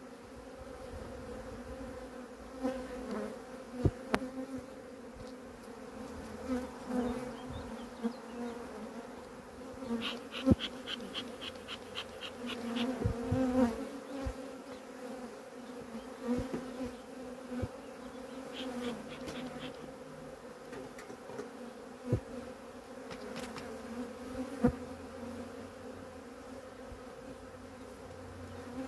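Honeybees humming steadily in an open hive, a constant drone, with a few sharp knocks and clicks of hive parts being handled as a plastic queen excluder is laid over the frames.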